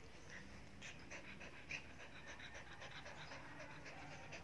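A playful puppy panting quickly and faintly, about five short breaths a second.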